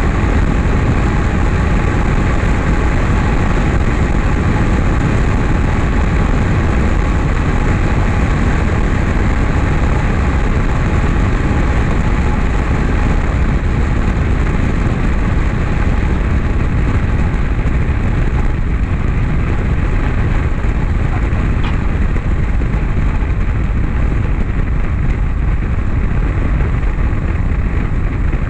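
Light airplane's piston engine and propeller running steadily, with wind rushing past a camera mounted on the outside of the airframe.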